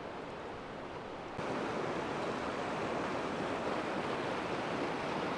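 Steady rushing of river current, with no distinct events; it becomes louder suddenly about a second and a half in.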